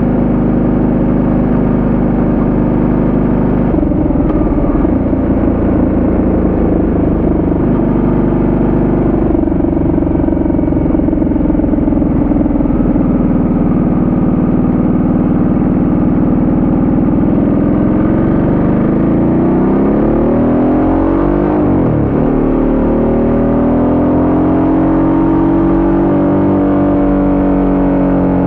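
Ducati Multistrada 1200S's L-twin engine running under way, heard from a camera mounted on the bike with road and wind noise. The pitch holds steady for most of the time, then in the last third swoops up and down as the throttle is closed and opened, with a sharp drop and climb back.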